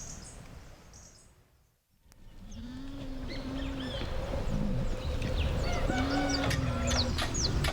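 Sound fades out to a moment of near silence, then animal calls: two drawn-out, steady low calls about a second long and a flurry of short bird-like chirps.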